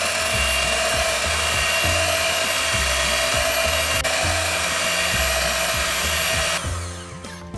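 Electric hand mixer with wire whisk beaters running at a steady speed, a high motor whine as it beats a cream base in a glass bowl, switched off about six and a half seconds in. Background music with a steady beat runs underneath.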